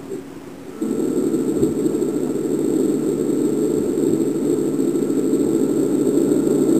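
Steady, muffled noise with a low hum under it, starting about a second in: sound garbled by a drop of water inside the microphone.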